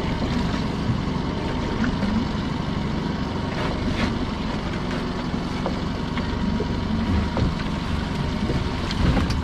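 A small boat's pot-hauling winch running steadily, drawing a lobster pot's line up from the seabed, with a couple of light clicks about four seconds in.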